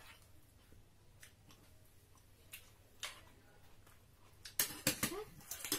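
Metal serving spoon and tongs clinking against a pot and plates while food is served: a few scattered clicks, then a quick run of louder clinks near the end.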